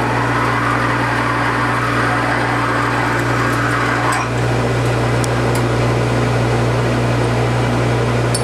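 Manual lathe running with a steady hum while a half-inch drill fed from the tailstock cuts into a spinning bushing blank. The cutting noise stops about four seconds in, leaving the lathe running, with a few light clicks.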